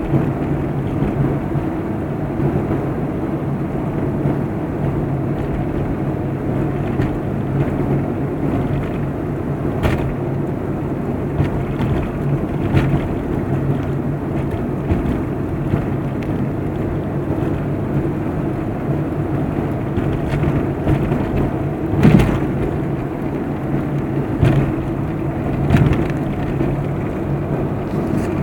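Daewoo Lanos running with a steady hum, and a few short sharp knocks standing out at irregular moments, the loudest about twenty-two seconds in: the knock the owner is recording.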